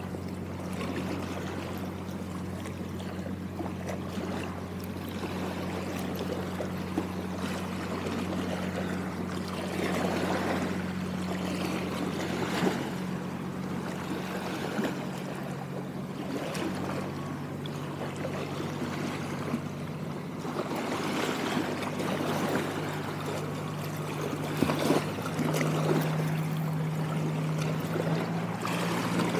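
A steady low motor hum that shifts pitch a few times, over water sloshing and splashing in uneven swells.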